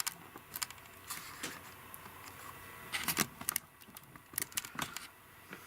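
Scattered light clicks and taps of small objects being handled, bunched in two clusters about three and four and a half seconds in.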